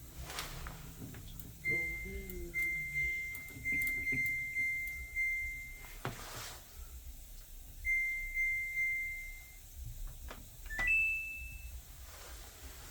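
Samsung washing machine control panel beeping. A run of short, high beeps on one pitch is followed a couple of seconds later by a second run, then a single higher beep.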